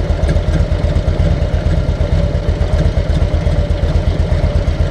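Harley-Davidson air-cooled V-twin engine idling with a steady, even pulse while its add-on electric cooling fans run.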